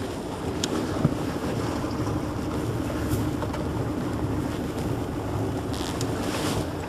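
Sailboat's inboard engine idling in gear with a steady low hum, under wind noise on the microphone. A couple of light knocks come early on, and a short rustle near the end, as dock lines are handled.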